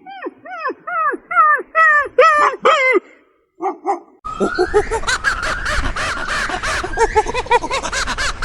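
A dog barking in a quick run of yelps, about three a second, each falling in pitch. After a short gap, a different scene follows: many birds calling harshly over one another.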